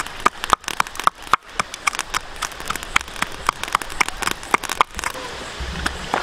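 Pestle pounding chilies in a small mortar: sharp, ringing knocks at about two a second, which stop about five seconds in.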